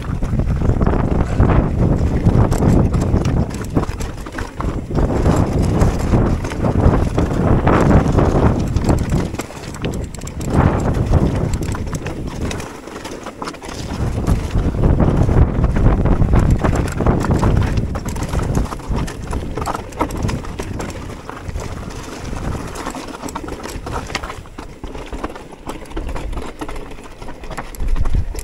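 Mountain bike rolling fast down a rocky gravel trail: tyres crunching and clattering over loose stones, with the bike rattling over the rough ground and the noise swelling and easing as the terrain changes.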